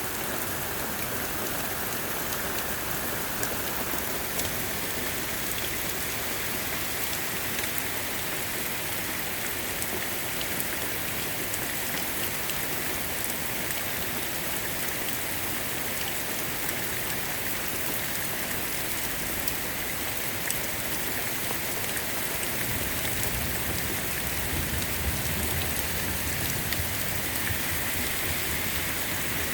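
Heavy rain falling hard and steadily, splashing on a roof. A low rumble joins in during the last quarter or so.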